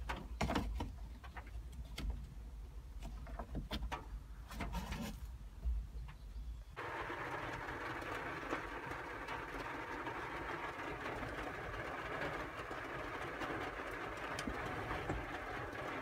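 Hand clicks and knocks around the dashboard for several seconds. Then, about seven seconds in, the cabin blower fan of a Daihatsu Hijet S200P switches on suddenly and runs steadily, air rushing through the heater housing.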